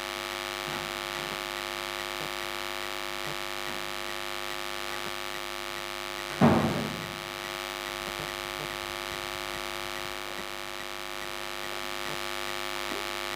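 Steady electrical hum or buzz with many overtones, with one short voice sound about six and a half seconds in.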